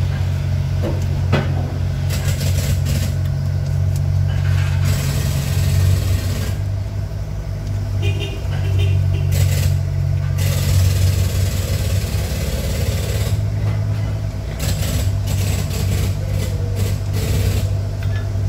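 An engine idling steadily, a continuous low drone, with a few light metallic clicks from wrenches on the valve rocker gear.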